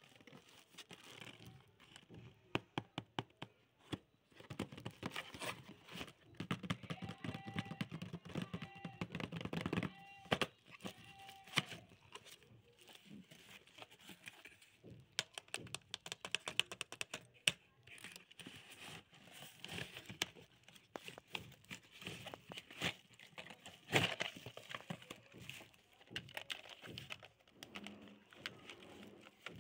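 Cardboard toy box and plastic wrapping being handled and opened by hand: irregular crinkling, rustling and tearing with many small clicks and knocks.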